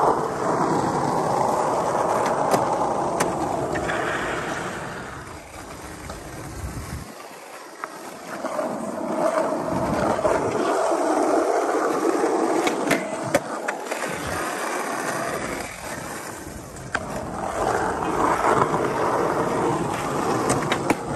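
Skateboard wheels rolling over the skate park surface, punctuated by several sharp clacks of boards popping and landing.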